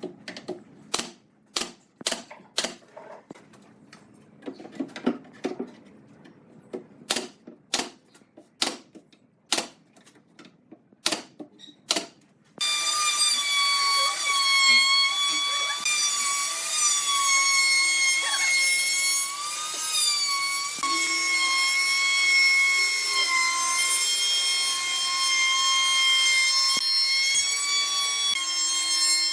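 About a dozen sharp, irregular knocks, then a power tool's motor starts suddenly and whines steadily at a high pitch, the pitch dipping and rising slightly as it works.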